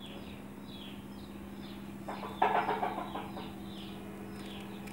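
Birds chirping in quick, short, repeated calls, with a louder burst of chicken clucking about halfway through.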